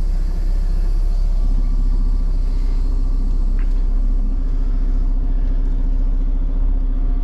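Semi truck's diesel engine running at low speed while reversing a trailer into a loading dock: a steady low rumble, with a steady hum joining about a second and a half in.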